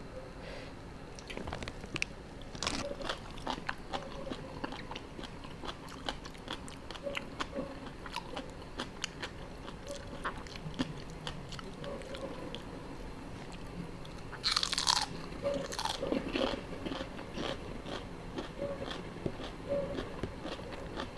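Close-miked eating: wet chewing with many small crunches and bites, as a mouthful of spicy seafood papaya salad is worked. About two-thirds of the way through, one louder rushing noise lasts under a second.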